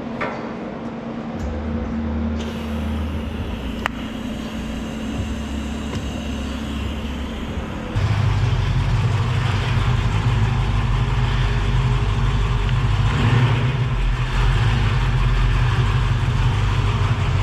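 Car engine running steadily, with a low even hum that gets noticeably louder about halfway through.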